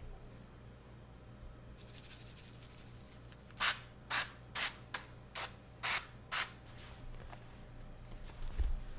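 Seven short hissing sprays in quick succession, about two a second, after a few seconds of faint rustling: a hand pump spray bottle being squeezed.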